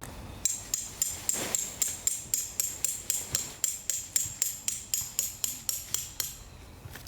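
A hammer driving a metal tent peg into the ground: a fast, even run of ringing metal strikes, about three or four a second, that stops near the end.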